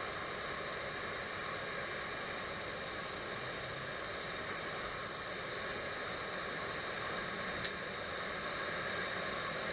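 Steady hiss of a Boeing 737 cockpit while taxiing: engine and airflow noise heard from the flight deck, growing slightly louder toward the end. One faint click about three-quarters of the way through.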